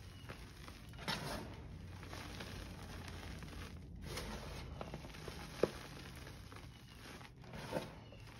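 Hands squeezing and raking through a pile of crushed gym chalk, the powder and small lumps crunching and rustling in soft swishes. About two-thirds of the way through comes a single short, sharp crack.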